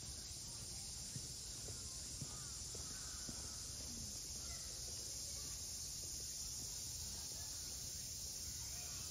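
Steady, high-pitched insect chorus, with faint short chirps scattered through it.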